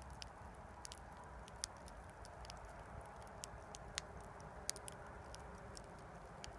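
Wood campfire burning: irregular sharp crackles and pops of burning wood over a low, steady rumble of the flames.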